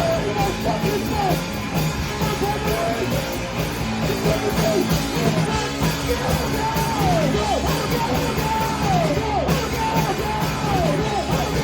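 Live rock band playing loudly with shouted, yelled vocals over the instruments. In the second half, a run of short falling pitch slides repeats several times.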